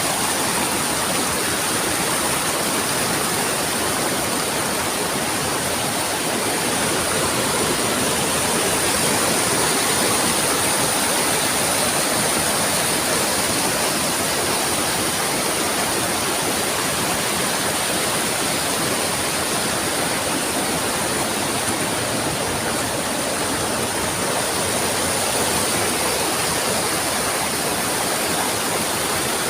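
A small waterfall and river rushing steadily, with a thin, steady high-pitched hiss running above the water noise.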